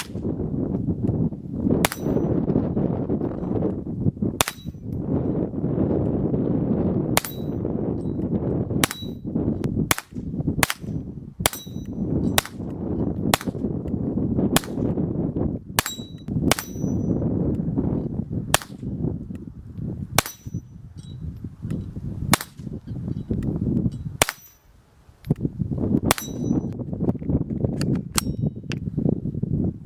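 .22 rimfire gunshots fired one after another at an irregular pace, about twenty in all. Many are followed by a short high metallic ring.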